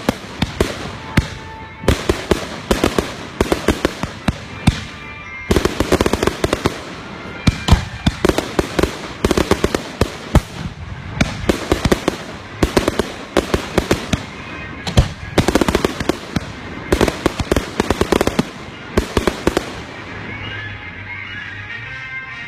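Aerial fireworks going off in rapid volleys of sharp cracks and reports, many a second, with short gaps between clusters. The barrage stops near the end.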